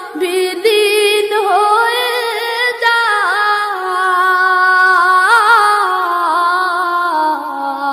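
A single voice singing a Bengali Islamic gojol (ghazal) without instruments, drawing out long ornamented notes that waver and glide, and holding a steady note near the end.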